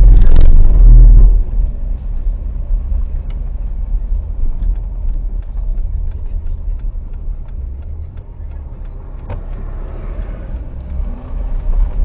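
A vehicle driving along a dirt and gravel road, heard from a camera mounted on it: a steady low rumble of engine and road noise with scattered ticks, loudest for about the first second.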